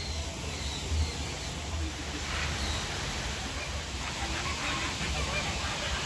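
A flock of American flamingos calling, a chatter of short goose-like honks from many birds at once, over a low rumble.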